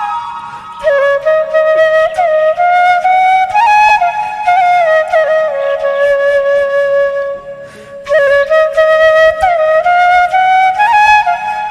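Background music: a solo flute melody with slides between notes, played in phrases with a short break about eight seconds in.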